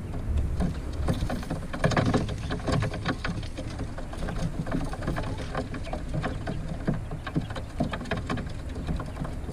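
Young Jumbo Brown coturnix quail stepping and pecking on a wire-mesh cage floor: a continuous patter of light, irregular ticks and taps over a steady low rumble.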